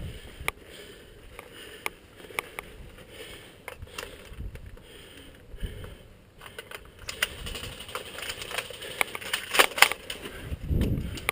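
Irregular sharp clicks and crunches, thickening into a louder cluster of clicks about three-quarters of the way through, with a low rumble of wind or handling on the microphone near the end.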